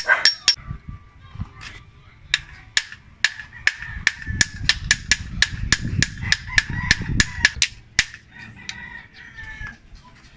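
Hammer tapping a new tensioner bearing into its pulley, slowly and evenly: quick, light metallic taps with a ringing edge. There is a short run at the start, then a steady run of about four taps a second from about two seconds in, easing off after about seven seconds.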